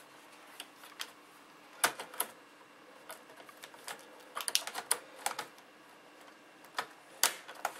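Irregular sharp plastic clicks and taps from an HP G50 laptop's keyboard and bezel being handled and pressed into place, with a quick run of clicks a little past the middle.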